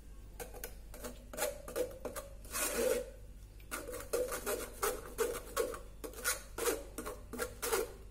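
Metal spoon scraping and rubbing against a stainless steel wire-mesh strainer as it presses blended sweet corn batter through, about two strokes a second, starting about half a second in.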